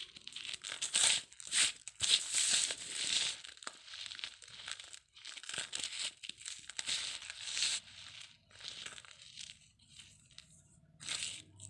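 Dry cement being crumbled: a run of irregular gritty crunching and crackling bursts, busiest in the first few seconds and thinning out later, with one more burst near the end.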